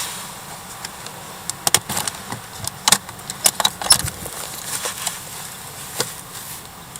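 A quick run of sharp clicks and metallic-sounding clinks from about one and a half to four seconds in, with one more near six seconds, over a steady hiss: small hard objects being handled.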